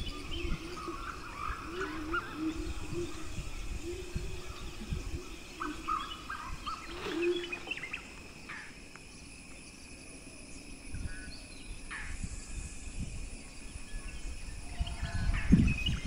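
Outdoor ambience of birds chirping and calling at intervals, over a low, gusting rumble of wind on the microphone.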